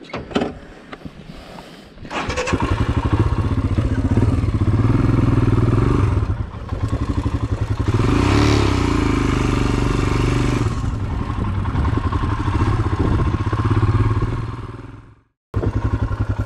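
Royal Enfield Himalayan's single-cylinder engine running under load as the motorcycle is ridden over a rocky dirt track. It is quieter for the first two seconds, then comes in loud and steady, swells around the middle and fades out near the end. Music starts just before the close.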